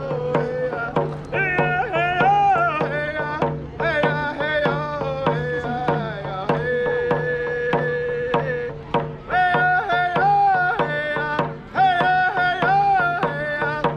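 Background music: a melody that slides and bends in pitch over a steady held drone, with a regular pulsing beat underneath.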